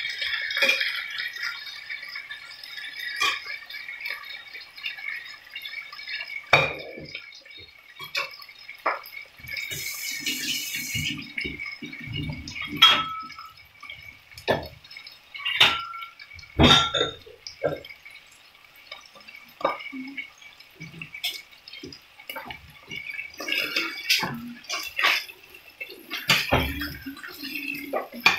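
Striploin steaks sizzling in hot oil in a frying pan: a steady hiss broken by many irregular crackles and pops of spitting fat.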